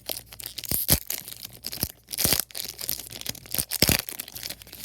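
Foil wrapper of a Yu-Gi-Oh trading card booster pack being torn open and crinkled by hand: irregular crackling and rustling, loudest a little over two seconds in and again near the end.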